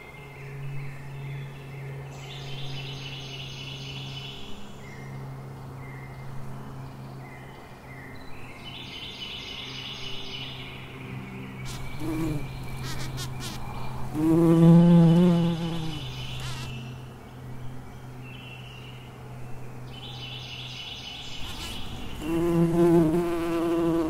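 Insect wings buzzing: a steady low hum, with a louder, wavering buzz passing close twice, about halfway through and near the end. A short high chirping trill repeats three times.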